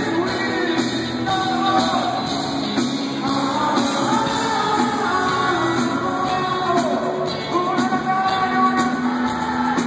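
Live rock band playing, with lead vocals sung over guitars and drums, heard from the crowd through a phone's microphone.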